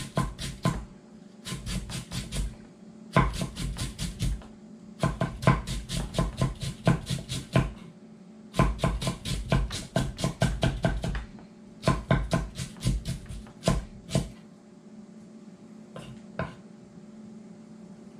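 Kitchen knife chopping fresh lemongrass finely on a thick wooden cutting board: quick runs of rapid strikes, about six a second, broken by short pauses. The last few seconds hold only a few single strikes.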